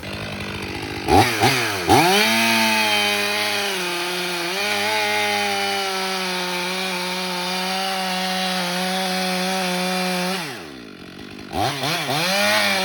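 Chainsaw revved from idle about a second in and held at full throttle, boring (plunge cutting) into a red maple trunk. Near the end it drops back toward idle for about a second, then revs up and cuts again.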